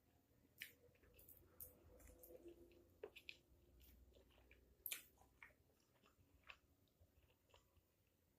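Quiet chewing of spicy fried instant noodles (Mie Gaga Extra Pedas Jalapeno), with scattered soft, irregular mouth clicks, the loudest about five seconds in.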